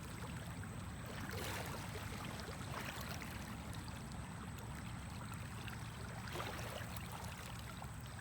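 Steady wash of water against the shore, with a low rumble and a few soft surges.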